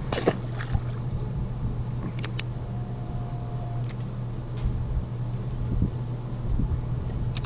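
A boat's motor hums steadily under low wind rumble, with a few light clicks and knocks and a brief faint tone about three seconds in.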